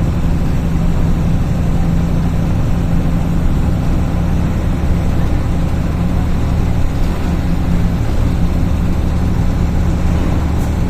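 Mercedes-Benz Eurocar G3 coach's diesel engine running at a steady speed, a low, even drone with no change in pitch.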